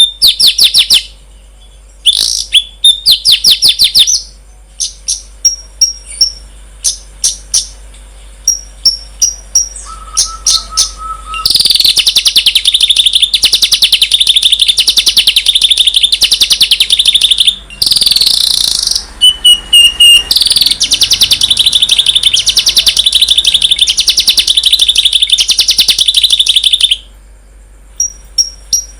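Songbird song: loud, sharp, high chirps repeated in quick runs, then from about twelve seconds in a dense, very rapid high trill that runs on for about fifteen seconds, broken briefly in the middle.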